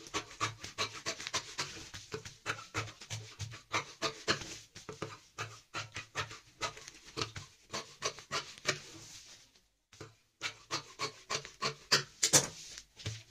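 Large scissors snipping along the edge of a quilted panel of cloth layered over a plastic sack, trimming it straight. The cuts come in a quick run of short snips, several a second, with a short pause a little under ten seconds in.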